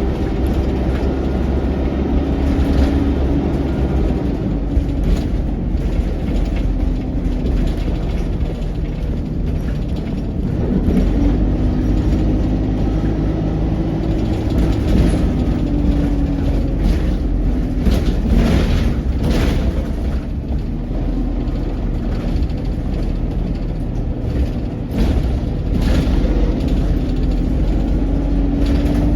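ADL Enviro200 single-deck bus under way, heard inside the cabin: the engine and drivetrain run with a steady low rumble and a hum that drifts up and down in pitch. Short rattles and knocks from the body come and go, most of them in the middle stretch.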